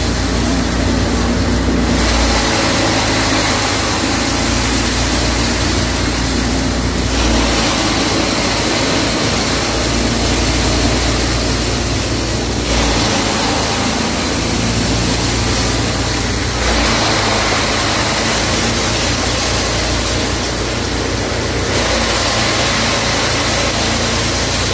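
Plastic-flake dryer running steadily: its blower fan makes a loud, even machine noise as shredded plastic flakes are blown through and pour out of the cyclone hopper.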